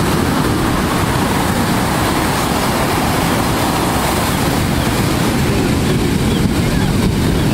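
Steady, loud rush of ocean surf and wind.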